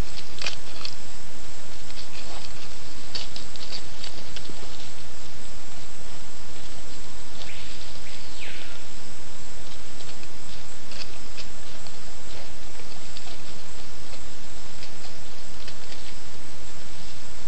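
Peccaries foraging in dry leaf litter: scattered rustles, clicks and crunches from hooves and feeding on fallen açaí, over a loud steady hiss from the trail camera's microphone. About eight seconds in, a short sound slides down in pitch.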